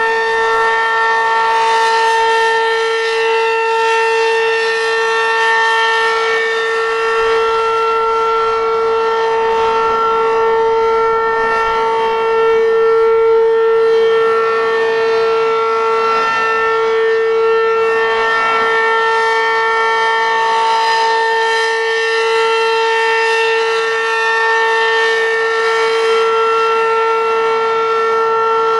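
Werden Electric P-127 outdoor warning siren sounding its full alert signal: one loud, steady tone held at constant pitch, its upper overtones swelling and fading every few seconds. This is the steady alert tone sounded during a routine monthly siren test.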